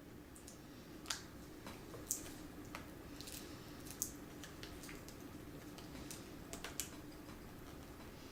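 Scattered light clicks and ticks of hands handling a laptop's replacement LCD panel, its cable connector and adhesive tape, irregular and a few a second at most, over a faint steady low hum.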